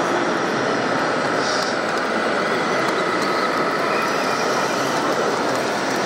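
Steady mechanical whirring with a faint constant whine from a radio-controlled hydraulic excavator model working its boom and bucket, over a continuous noisy hall background.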